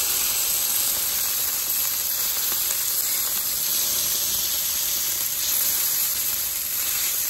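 Steak sizzling on a hot charcoal grill as its fat renders: a steady sizzling hiss.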